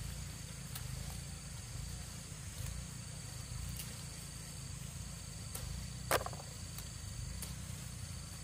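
Insects chirping steadily in a thin high tone over a low rumble, with a few short sharp clicks; the loudest click is about six seconds in.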